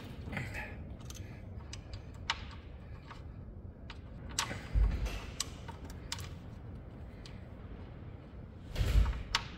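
Light metallic clicks and knocks of hands working the new steering sector gear and its pivot bolt hardware on a Cub Cadet LT1045 lawn tractor, with two dull thumps about five and nine seconds in.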